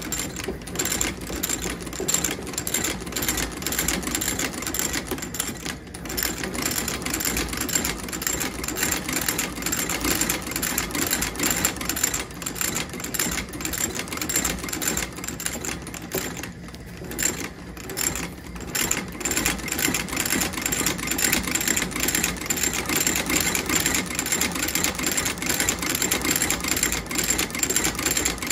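Outsole stitching machine running, rapidly clattering as it lockstitches a new leather sole to the boot's welt, with two brief dips in the clatter about six and seventeen seconds in.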